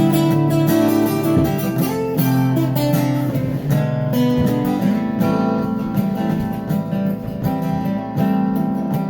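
Acoustic guitar playing an instrumental passage, strummed chords with picked notes ringing over them.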